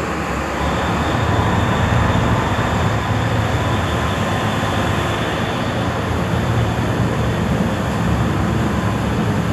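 Steady low rumble of a ferry's engines under a dense rushing noise, growing a little louder about half a second in.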